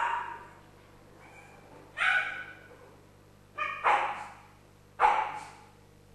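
West Highland White Terrier barking on its own: four barks, the middle two close together.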